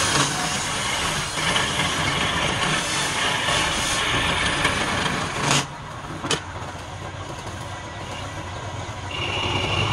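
Wood-turning lathe running with steady machine noise. Two sharp knocks come a little past halfway, after which it runs quieter, and a steady high whine comes in near the end.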